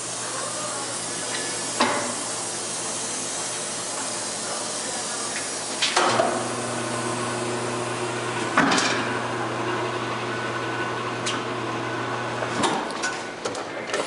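Tire changer machine mounting a tire on a rim: a steady motor hum comes and goes as the turntable runs, over a constant hiss. Sharp metallic clanks come about four times as the tire and bead tools knock against the machine.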